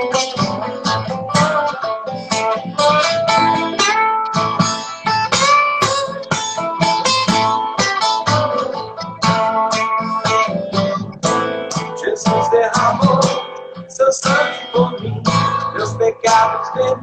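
Acoustic guitar playing an instrumental break in a song, a run of quick plucked notes over chords.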